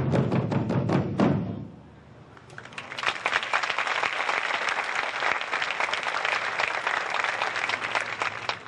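Tahitian drum ensemble beating a fast, steady rhythm that stops abruptly about a second in; after a short lull, a large audience applauds.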